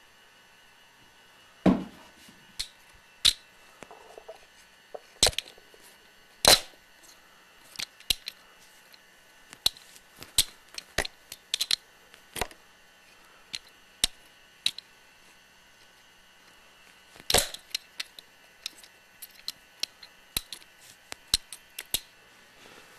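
Irregular sharp clicks and knocks on a Sony Handycam body as a cat paws at the camera and its dangling lens cap, over the camcorder's faint steady hiss and hum. The loudest is a heavier thump about two seconds in, and the knocks come thick and fast near the end.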